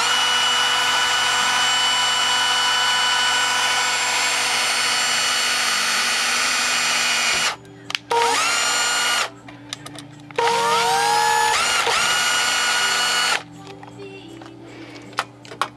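Power drill driving a self-tapping screw through a sheet-metal handy box into the metal housing of a Suncourt Inductor duct booster fan. A steady high motor whine stops about seven and a half seconds in, comes back in a brief burst of about a second, then runs again for about three seconds; each restart rises in pitch as the motor spins up. Light clicks of handling follow near the end.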